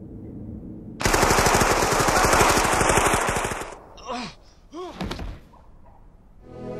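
Thompson submachine gun firing one long burst of rapid automatic fire, lasting about two and a half seconds.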